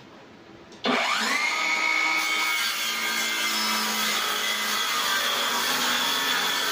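MT Masaki MT-6800 cordless circular saw starting about a second in, its motor whine rising quickly to speed, then running steadily as it cuts along a plywood sheet.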